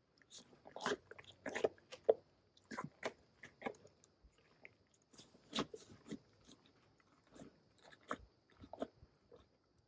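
A liliger (lion–liger hybrid) chewing food taken from a hand, an irregular series of bites and crunches.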